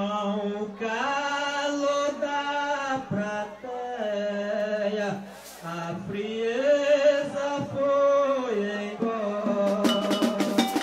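A maracatu rural mestre singing an improvised verse of a sambada unaccompanied, a single male voice holding long, drawn-out notes that step up and down in pitch. Near the end the percussion strikes up.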